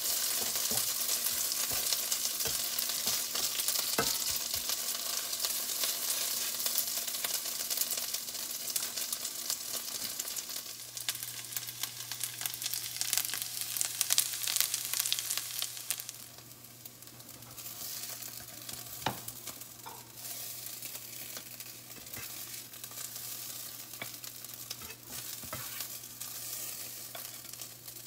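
Shredded potatoes frying and sizzling in a nonstick pan, stirred with a spatula, with a few sharp taps. The sizzle grows quieter about sixteen seconds in, and a low steady hum starts about ten seconds in.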